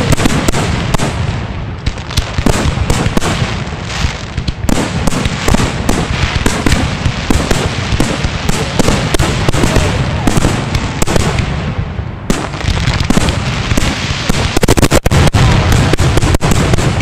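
Aerial fireworks shells going off at close range: a dense, continuous barrage of bangs and crackling. About fifteen seconds in it quickens into a faster, louder rapid-fire string of reports.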